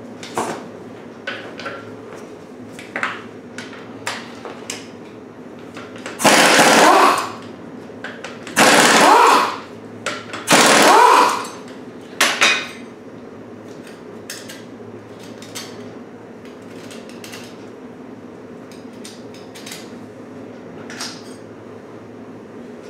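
Impact wrench hammering in three bursts of about a second each, then a brief double burst, loosening the bolts on the tractor's flywheel. Short metal clicks and knocks of tool handling come between the bursts.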